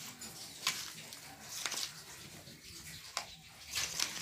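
A metal spoon mixing chopped salad vegetables in a stainless-steel bowl, with about four short sharp clinks and scrapes of the spoon against the steel.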